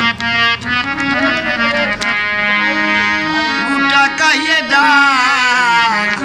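Hand-pumped harmonium playing a steady reedy melody line with held drone notes. About four seconds in, a man's voice starts singing over it with wavering, ornamented pitch.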